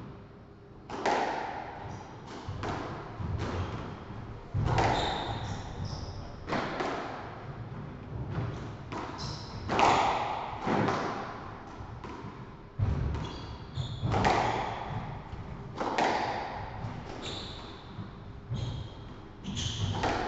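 Squash rally: the ball is struck by rackets and smacks against the court walls, one hit every second or two, each ringing on in the enclosed court. Short high squeaks of shoes on the wooden court floor come in between the hits.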